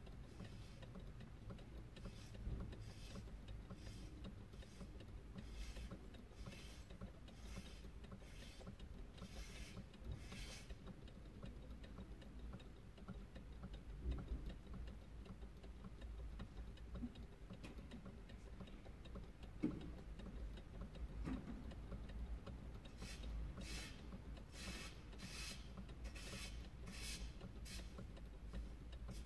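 Faint, regular mechanical ticking, about one and a half ticks a second, that stops about ten seconds in and starts again near the end, over a low steady rumble.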